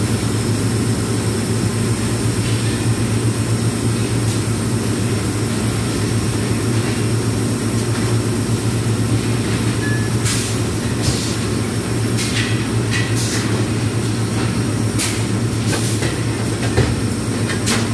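Submerged arc welding equipment running: a steady low electrical hum over a rumbling noise, with several short hisses in the second half.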